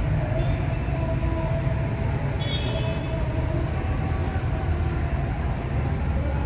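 Steady low rumbling ambience with faint voices in the background, and a brief high chirp about two and a half seconds in.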